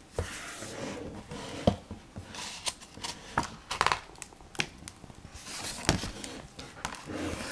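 A hardcover picture book being opened and its pages turned by hand: paper rustling and sliding, with several sharp taps and clicks from the stiff pages and cover.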